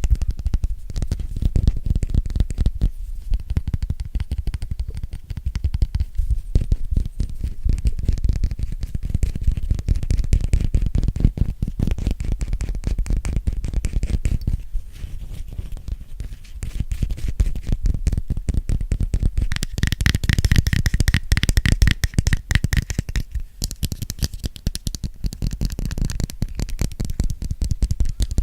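Rapid, continuous fingertip and nail tapping on an object close to the microphone, the taps dense and heavy on the low end. About two-thirds of the way through, the taps turn brighter and sharper for a few seconds.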